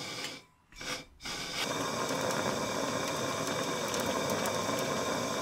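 Gas torch flame burning with a steady noise, heating a seized exhaust-manifold nut so the stuck bolt can be broken free. The flame noise starts about a second in, just after a brief short sound.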